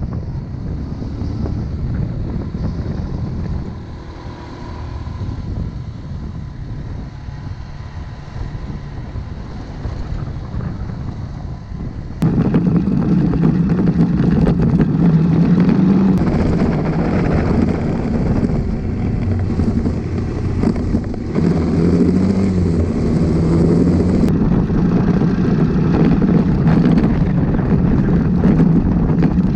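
Motorcycle engine running while riding, with wind on the microphone. About twelve seconds in the engine sound turns abruptly louder and stays so.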